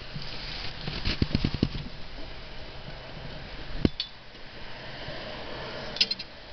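Metal clanks and rattles from the zero-turn mower's hinged seat and seat pan being tilted up on its frame: a quick run of rattling knocks about a second in, then a single sharp knock just before four seconds and another sharp clank near the end.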